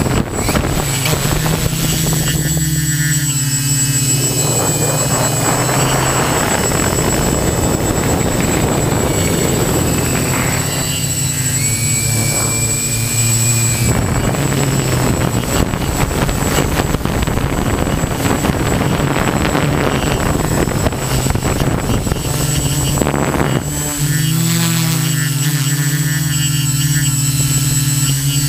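Quadcopter's motors and propellers buzzing steadily, heard from the camera mounted on it, with the tone shifting in pitch near the end as it manoeuvres. Wind rushes over the microphone through the middle stretch.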